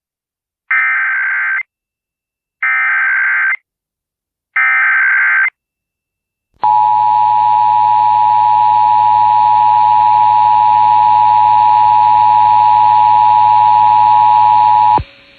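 Emergency Alert System broadcast: three short buzzing bursts of SAME header data, each about a second long and a second apart. Then the steady two-tone EAS attention signal, 853 and 960 Hz sounded together, held for about eight seconds and cutting off abruptly near the end. This sequence marks the start of an emergency alert.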